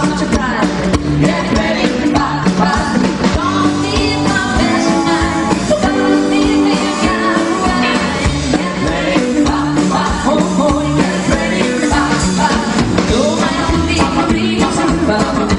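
Rockabilly band playing live, with a steady drum beat under a woman singing lead.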